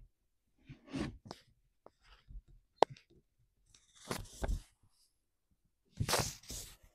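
Rubber intake boot of a Stihl MS211 chainsaw being wiggled by hand during a crankcase pressure test for air leaks, with the saw not running. Scattered rubbing and creaking with small clicks, a sharp click about three seconds in, and two louder scrapes about four and six seconds in.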